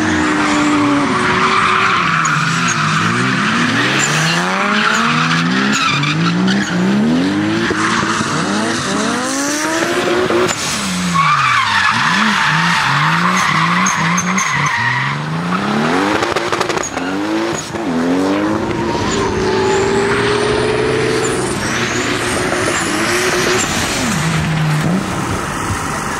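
Toyota 2JZ straight-six in a drifting Nissan 200SX, revving up and falling back again and again, with the tyres squealing and skidding through long slides.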